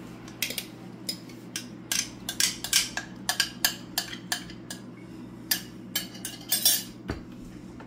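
A spoon clinking and scraping against bowls as chopped salsa is scraped out of one bowl into a steel mixing bowl: a quick, irregular string of sharp clinks.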